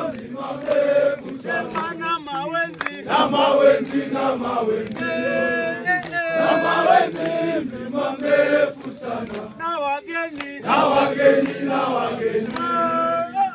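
A group of Tanzanian mountain porters and guides singing a welcome song together, many men's voices chanting in unison.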